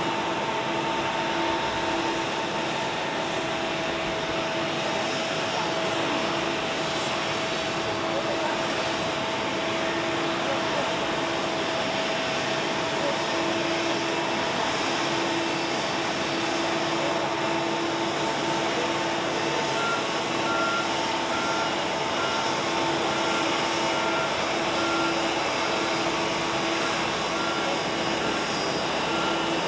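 Boeing 777-300 airliner's twin jet engines running as it taxis close by: a steady rush with several held tones. About two-thirds of the way in, a regular high beeping starts, roughly two beeps a second.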